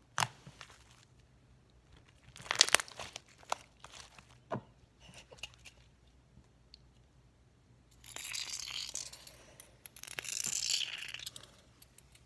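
Fluffy slime mixed with silly string being squeezed and stretched by hand, giving scattered sharp pops and crackles. About two-thirds of the way in come two spells of rustling, one after the other, each a second or two long.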